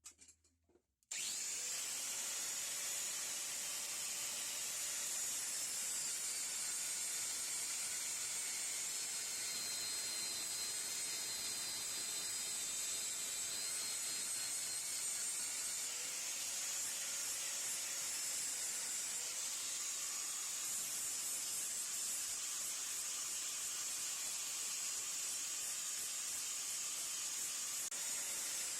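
Electric power tool running steadily while grinding or abrading the metal of an antique pipe wrench, a high hiss that starts suddenly about a second in.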